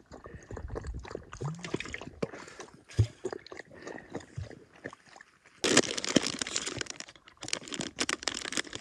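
A dog lapping water from a collapsible bowl, with small clicks and splashes. From about two-thirds in, a chocolate bar's paper wrapper is torn open, crinkling loudly and continuously.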